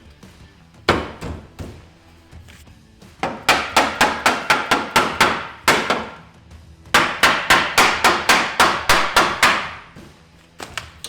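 Hammer blows on a steel crossmember, tapping it into place on the Jeep frame for a test fit. There is a single blow about a second in, then two runs of quick, even blows at about four a second.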